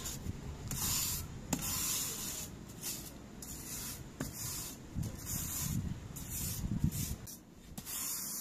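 Stiff wire brush scrubbing along the joint between concrete patio slabs, its bristles scraping the dirt out in repeated strokes, roughly one a second. A sharp tap comes about one and a half seconds in.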